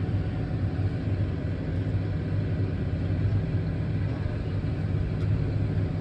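Tractor engine running steadily at a constant pitch while the hydraulics turn a reversible plough over to shake the soil off its mouldboards.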